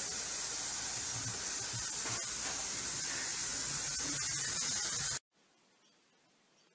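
Steady hiss of a bathroom sink tap running, stopping abruptly about five seconds in, followed by near silence.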